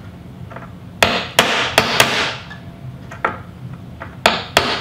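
Claw hammer tapping a nail punch to drive a small nail through a wooden cabinet door frame: about seven sharp strikes, three or four in quick succession, then a pause, then a few more.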